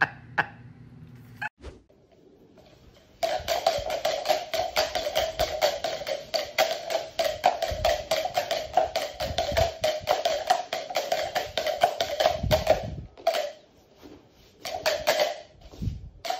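Background music with a fast, clicking percussive beat over a steady tone, starting about three seconds in, breaking off briefly near the end and then coming back.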